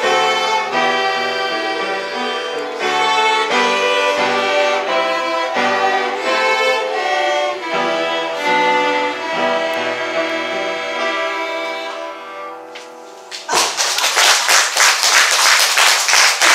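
Violins in a small string ensemble playing a piece that dies away to its final note about twelve to thirteen seconds in. A moment later the audience breaks into applause.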